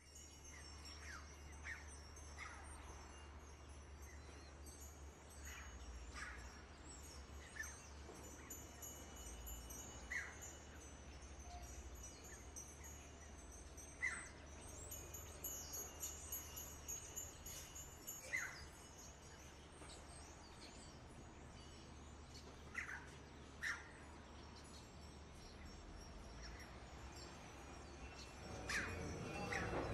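Faint birds chirping now and then, short single chirps at irregular intervals over a low steady hum.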